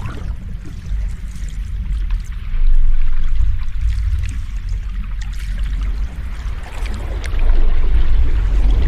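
Sea waves washing in: a continuous deep rumble with a fizzing crackle of surf, swelling louder about two and a half seconds in and again near the end.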